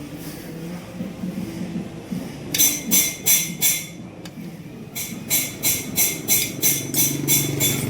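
Metal struck repeatedly with a hammer, with sharp ringing blows about three a second. There is a short run of four blows, a pause, then a longer run of about ten.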